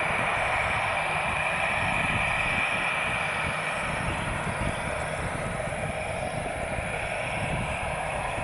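Airbus A320-216 airliner's twin CFM56 turbofan engines running steadily at low power as it rolls slowly along the runway: an even rush of engine noise with a steady high whine on top, a little stronger in the first few seconds.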